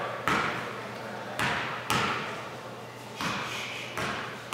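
A basketball bouncing on a hardwood gym floor: about six irregularly spaced thuds, each echoing in the large hall.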